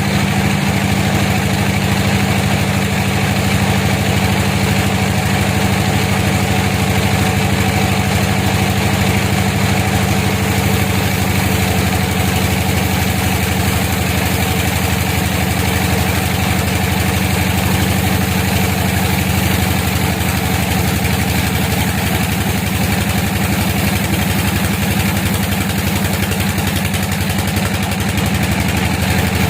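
An engine running steadily at idle with an even, unchanging low hum, most likely the sawmill's power unit running while no cut is being made.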